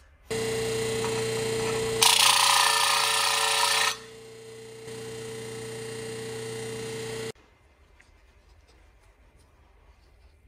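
An electric power tool's motor running steadily, starting and stopping abruptly. For about two seconds near the middle it grows much louder and harsher as it bites into the work, then drops back to a quieter run.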